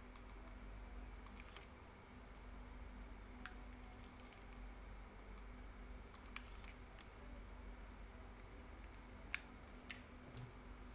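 Near-quiet room with a few faint, sharp clicks scattered throughout, the loudest about nine seconds in: handling sounds from a hot glue gun and trim being worked around a small craft ornament.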